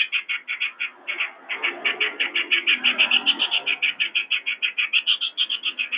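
Yellow-vented bulbul (trucukan) giving an unusual, unbroken run of short, high chattering notes, about nine a second, a call likened to a kuntilanak's laugh.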